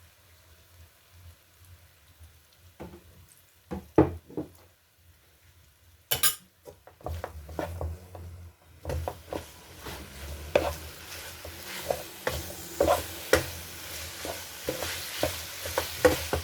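Stir-frying in a pan: utensils knocking and scraping against the pan while the food sizzles. A few knocks in the first seconds, a short sharp hiss about six seconds in, then steady sizzling with repeated irregular scrapes and clanks.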